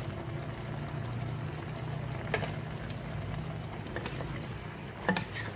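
Sauce simmering and bubbling softly in a pan around braised grouper fish head pieces, with a low steady hum underneath. Two light clicks come about two and a half seconds in and again near the end, as spring onion is added.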